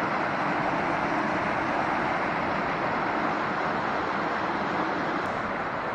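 Mountain brook rushing and cascading over boulders in whitewater, a steady, loud rush of water.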